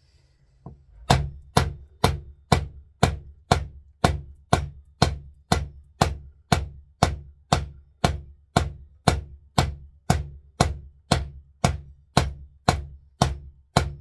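Brass-headed hammer tapping steadily, about two sharp metallic strikes a second, driving a new pistol sight sideways into its steel dovetail, a snug fit that takes many blows.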